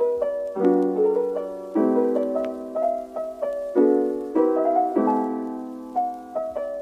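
Background piano music: soft chords struck about once a second, each one fading before the next.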